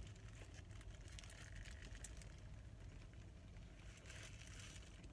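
Near silence inside a car: a low steady hum with a few faint soft ticks.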